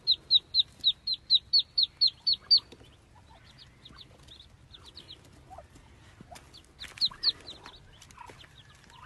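Ducklings peeping: a quick run of loud, high peeps, about four a second, for the first two and a half seconds. Softer scattered peeps follow, with two loud ones about seven seconds in.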